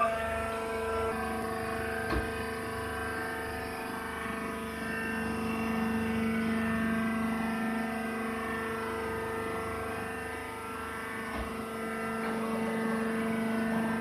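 Hydraulic power unit of a wood shavings baler, its electric motor and pump running with a steady, even hum.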